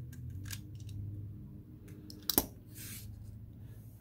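Small, light clicks from a precision screwdriver and the handling of a smartphone's opened metal frame. One sharp tap comes about two and a half seconds in, followed by a brief scrape.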